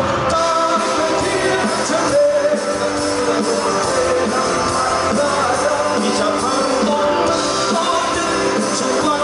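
Live rock band playing on a PA: electric guitars, keyboard and drums, with a sung lead vocal.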